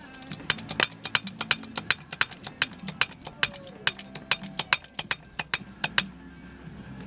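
Hydraulic bottle jack being pumped by hand under a motorcycle lift stand, giving quick uneven metallic clicks, several a second, as the ram rises and lifts the motorcycle.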